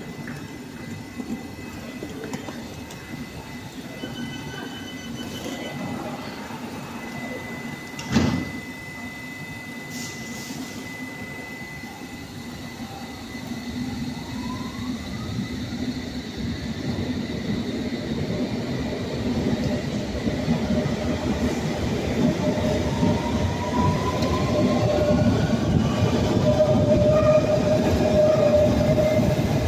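London Underground train pulling out of the platform. There is a single thud about eight seconds in. Then the traction motors whine, rising in pitch, and the rumble of the carriages grows steadily louder as the train gathers speed.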